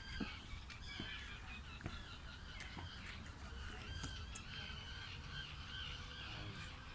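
Birds calling over and over in short, wavy calls, with a few light clicks.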